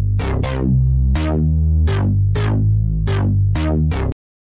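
Electronic music with a steady drum-machine beat and deep synth bass notes, cutting off abruptly about four seconds in.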